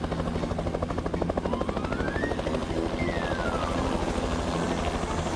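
Cartoon helicopter sound effect: a fast, even rotor chop over a steady engine hum as the little helicopter hovers. Partway through, a whistle-like tone glides up, and about a second later another glides back down.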